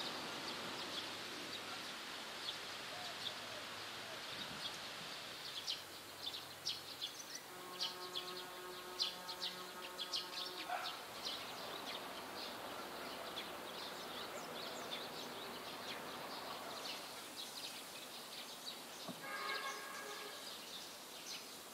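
Outdoor ambience with a steady background hiss and many small birds chirping in short high notes. About eight seconds in, a steady tone with overtones holds for about three seconds, and a shorter one sounds near the end.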